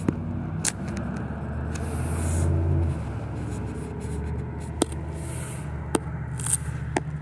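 A car engine idling with a steady low hum that swells briefly in the first few seconds. Several sharp clicks are spread through it.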